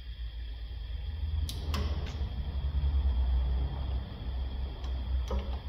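Sharp clicks and knocks of hand work on the car's underside: a quick cluster about a second and a half in and two more near the end, over a steady low rumble.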